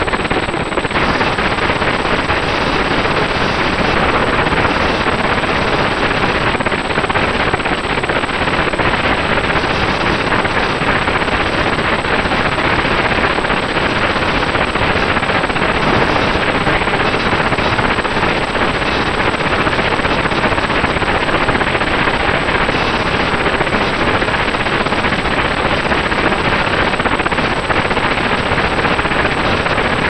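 Loud, steady, harsh noise recorded by a RunCam 2 action camera's built-in microphone on a flying RC aircraft, with a thin steady whine running through it. It is the 'horrible sound' that drowns out the motors and propellers, which the owner suspects is a hardware or firmware fault in the camera.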